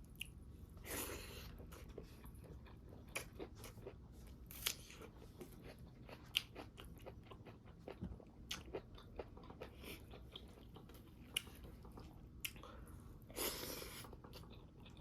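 Close-up eating sounds: chewing and biting through pork with crunchy bones and rice, with many short sharp crunches and mouth clicks. Two longer noisy bursts come about a second in and near the end.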